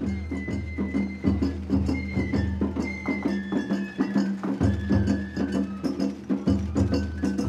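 Japanese festival ohayashi music played on a dashi float: a high bamboo flute holds and steps through a melody over quick, steady drum and percussion strikes.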